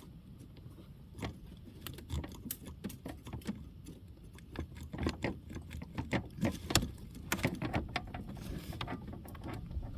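Irregular light clicks and knocks of hard parts being handled: the plastic brake fluid reservoir being worked back onto the master cylinder.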